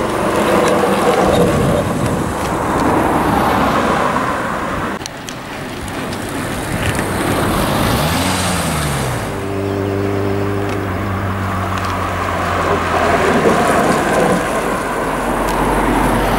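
Cars passing on a road, with engine and tyre noise. About eight seconds in, an engine note rises and falls, then holds steady for a few seconds.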